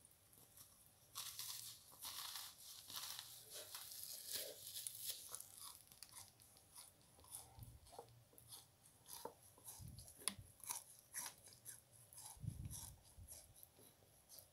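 A crystal-crusted kitchen sponge being squeezed, giving a run of crisp crunching and crackling that starts about a second in, with a couple of dull bumps near the end.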